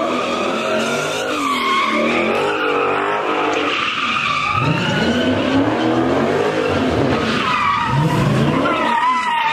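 A car doing donuts: its tyres squeal continuously with a wavering pitch while the engine revs rise and fall several times.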